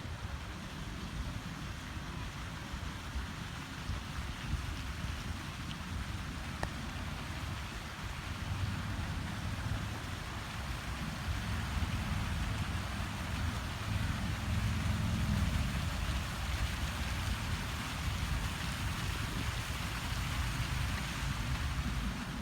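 Water fountain splashing: a steady hiss of falling water, with wind rumbling on the microphone and growing stronger partway through.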